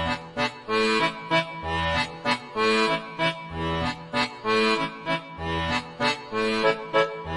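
Upbeat instrumental music with a steady bouncy rhythm: low bass notes alternating with short chords.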